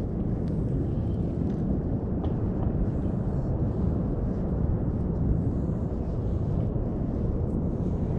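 Steady low rumble of wind buffeting the microphone outdoors, with a few faint small clicks.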